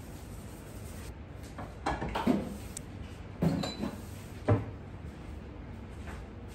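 Kitchen wall-cabinet door opened and shut as a ceramic bowl is taken out: a few short knocks and clatters about two, three and a half and four and a half seconds in, the last the sharpest.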